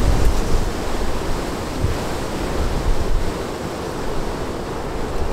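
Wind blowing on the microphone: a steady rushing noise, heaviest in the deep end, that swells and eases with the gusts.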